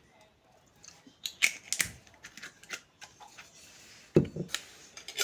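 Kitchen handling sounds: a run of sharp clicks and knocks from utensils and containers, a brief hiss about three seconds in, and a heavier thump a little after four seconds.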